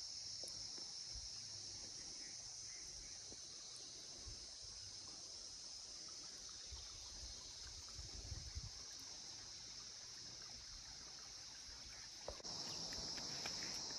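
Faint, steady chirring of an insect chorus, crickets, a high even hiss-like drone that gets louder near the end.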